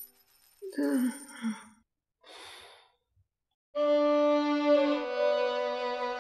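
A woman's short pained moan and a breathy sigh, then sustained violin-led background music comes in just under four seconds in.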